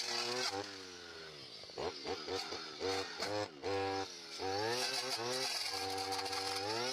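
Two-stroke brush cutter engine running. It drops toward idle about a second in, is blipped up and down several times, then holds at high revs and rises again near the end.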